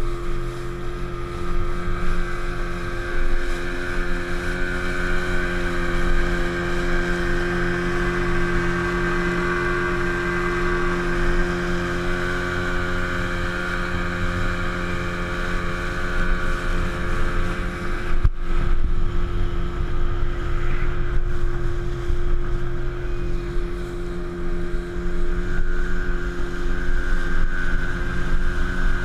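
Outboard motor of a small open speedboat running at steady speed under way, a held, even engine tone.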